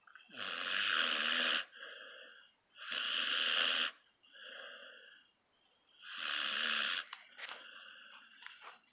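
A sleeping puppy snoring: three loud rasping breaths about three seconds apart, each followed by a quieter, whistling breath, with a few small clicks near the end.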